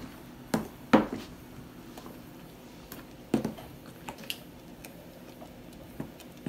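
A metal utensil stirring thick draniki batter of grated potato, egg and flour in a mixing bowl, with irregular sharp knocks of the utensil against the bowl, the loudest about a second in and again around three and a half seconds in.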